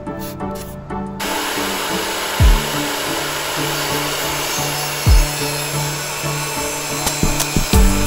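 Craftsman 10-inch table saw starting about a second in and running steadily as a wooden board is fed through the blade for a rip cut. Background music with a steady beat plays underneath.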